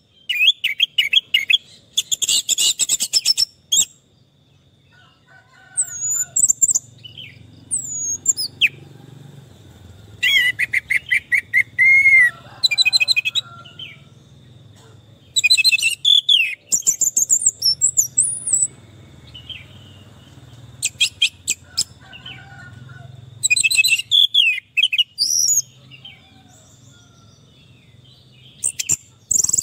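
Orange-headed thrush (anis merah) singing: repeated bursts of varied song phrases of rapid trills, clicks and gliding whistles, with pauses of a second or two between them. A faint steady high tone runs underneath.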